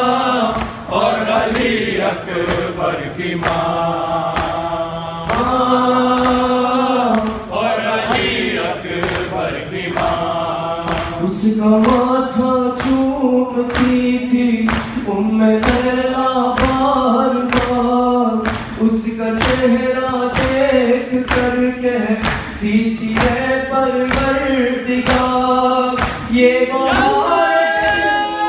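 A man singing a nawha, a Shia lament, into a microphone in long, held lines, with other voices joining in. Under the singing runs a regular beat of hands striking chests (matam), which grows more prominent about halfway through.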